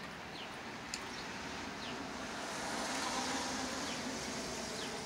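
Outdoor background noise: a vehicle passes, its hiss swelling and fading in the middle. Short high chirps from a bird repeat faintly throughout.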